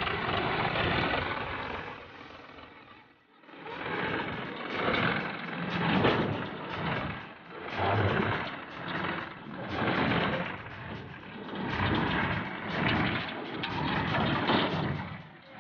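Powertrac 439 diesel tractor running under load as it tows a trailer through floodwater, with water splashing around the wheels. The sound swells and fades about once a second, after a brief lull about three seconds in.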